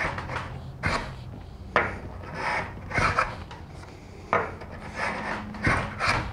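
Lie-Nielsen low-angle rabbet block plane shaving the end grain of a cherry board: repeated scraping strokes, about one a second, each starting sharply and tailing off as the blade cuts through the tough wood.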